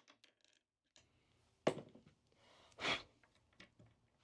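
Quiet handling noise from working on an electric skateboard's front truck and surf adapter on a wooden table: faint clicks, one sharp knock about one and a half seconds in, and a short breath near three seconds.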